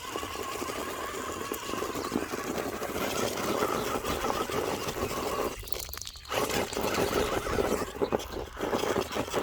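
Axial Capra 4WS RC rock crawler, with its Hobbywing AXE brushless motor and drivetrain whining, as it crawls with its tyres scraping and crunching over rock. It stops briefly about six seconds in, then carries on.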